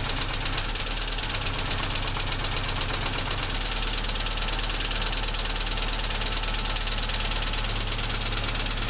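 ZAZ Tavria's MeMZ-245 four-cylinder engine idling steadily with a distinct knock, while cylinders are switched off one at a time to find it. The owner suspects a piston pin knocking in its piston bosses.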